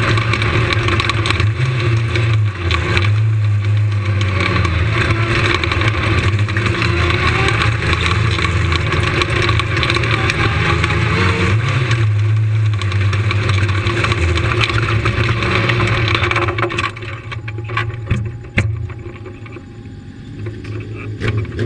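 Lightning sprint car's motorcycle engine, heard from on board, running at low revs with a few small throttle rises as the car rolls slowly. About 17 seconds in the engine is switched off, leaving scattered clicks and rattles with one sharp click shortly after.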